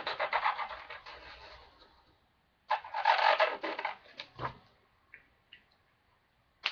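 Scratching and rustling of a marker and paper that fades out over the first two seconds. A second rustle comes about three seconds in, followed by a few faint clicks.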